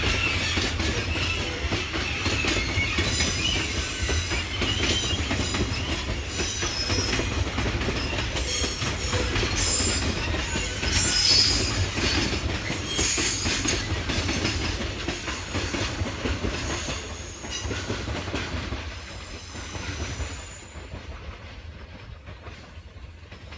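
Freight train rolling past, its wagons' wheels rumbling and clattering on the rails, with high-pitched wheel squeal flaring again and again through the middle. The sound fades away over the last few seconds as the train moves off.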